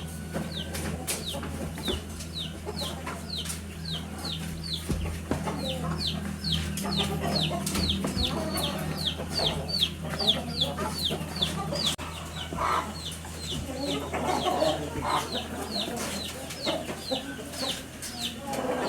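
Chickens clucking in a poultry pen, with a short, high, falling chirp repeating about twice a second throughout and clucks coming thicker in the second half.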